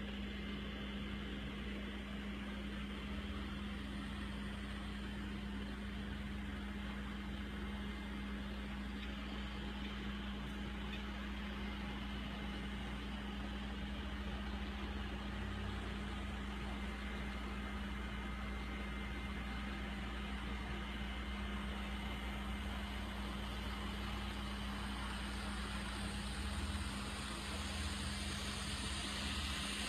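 N-scale model trains running on the layout: a steady mechanical hum of the small electric motors and wheels on the track. It grows louder near the end as the Daylight-liveried steam locomotive passes close by.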